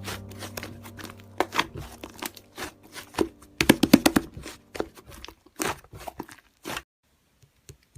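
Slime being squeezed and poked, giving a quick, irregular run of clicks, pops and crackles. Background music fades out in the first second or two. The slime sounds stop about a second before the end.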